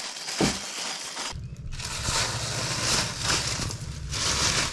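Wet plastic bag crinkling and rustling as it is handled. After a break about a second and a half in, the rustling goes on over a steady low hum.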